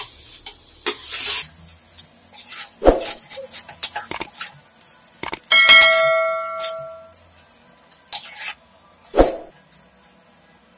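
Metal spatula scraping and stirring thick semolina halwa in a steel kadhai, with a frying sizzle for the first second or so and a few knocks of the spatula against the pan. About five and a half seconds in, a bell-like ding rings out and fades over about a second and a half: the chime of a subscribe-button animation.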